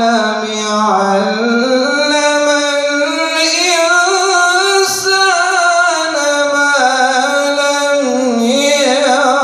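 A man reciting the Quran in a melodic, sung style, drawing out one long ornamented phrase whose pitch slowly rises and falls, with quick wavering trills. There is a brief catch about halfway through.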